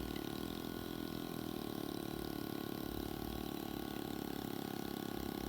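Pneumatic air graver running steadily, its handpiece hammering the graver into a metal belt buckle to cut engraving lines, heard as a continuous fast-pulsing buzz.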